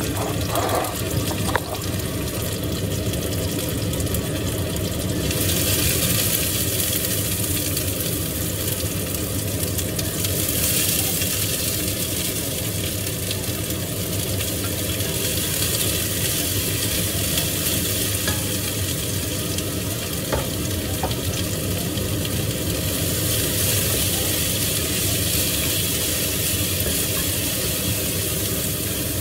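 Food sizzling in a covered stainless steel pot on the hob, over a steady low hum. The sizzle grows stronger about five seconds in and swells again a few times.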